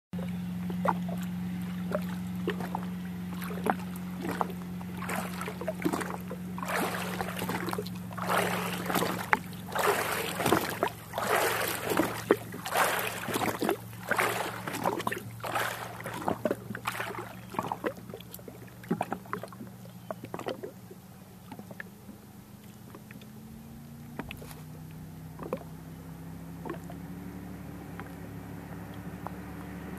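Water slapping and sloshing against a boat's hull over a steady low engine hum, with the slaps heaviest in the middle. Near the end a distant powerboat's engine comes in, its pitch slowly rising as it approaches.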